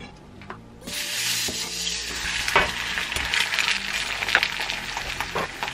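Eggs frying in a hot pan on a gas burner, sizzling loudly from about a second in, with a few sharp clicks and knocks over the sizzle.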